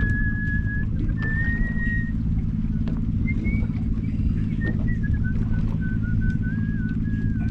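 Boat engine idling with a steady low hum, and above it a thin whistle-like tone that holds for about a second at a time and shifts slowly in pitch.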